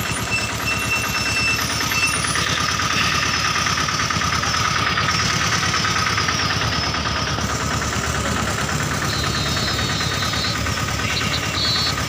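An engine running steadily at idle, with a low pulsing rumble. A few short, high peeps sound near the start and again near the end.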